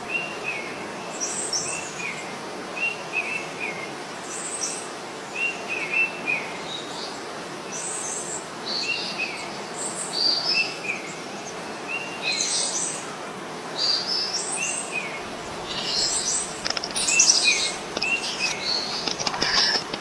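Birds chirping in short, repeated phrases of a few quick notes over a steady background hiss, getting busier in the last few seconds.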